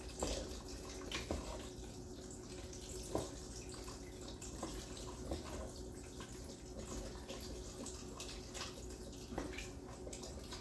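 Chicken broth pouring in a steady stream from a carton into a soup pot, with a few light knocks of a stirring spoon against the pot.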